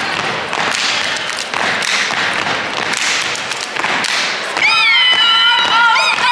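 Steppers clapping and stomping in unison on a hardwood gym floor in a steady rhythm. About four and a half seconds in, a shrill, wavering vocal call rises over the stepping.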